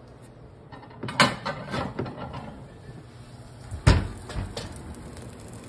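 Knocks and clatters of things being handled in a kitchen: a run of small knocks, then one loud knock about four seconds in.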